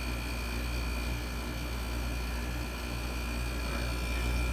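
Vintage window air conditioner running, its compressor and fan giving a steady low hum with faint high whining tones. The compressor is making kind of a nasty noise.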